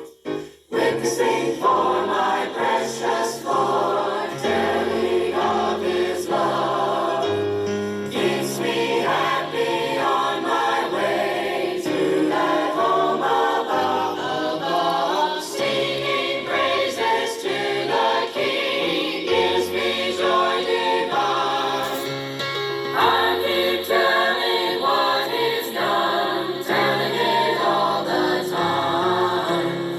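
Choir singing a gospel song in harmony, with a bass line moving underneath, after a brief break in the sound right at the start.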